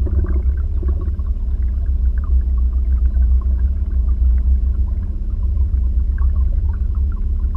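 Low, fluttering rumble of wind buffeting the microphone on a canoe, with faint small water splashes scattered through it.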